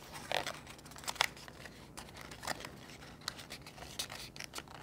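Paper leaflets and the cardboard box being handled: irregular rustling with small clicks and taps, the sharpest tap about a second in.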